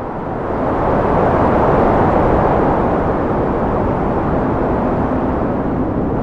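A loud, steady rushing noise that swells during the first second and then holds level.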